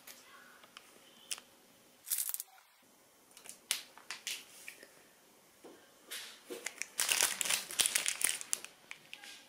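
Plastic wrapper of a protein bar crinkling and tearing open in the hands: a few scattered rustles at first, then a dense run of crinkling from about six seconds in.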